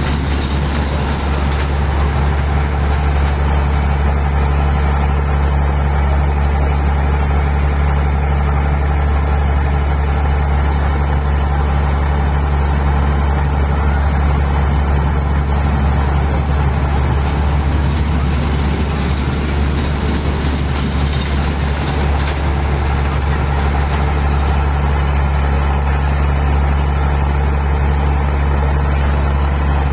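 A steady low engine drone that stays loud and even, with no change in pitch.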